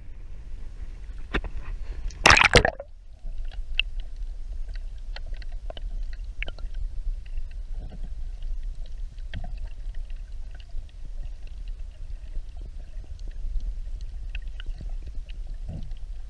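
Water slapping and splashing around a small boat, under a steady low rumble of wind on the microphone. There is a loud, short rush of noise about two seconds in, then light scattered ticks and splashes.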